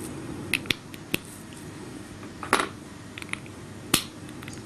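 Small plastic linking cubes being snapped together by hand, a series of about seven sharp, irregular clicks.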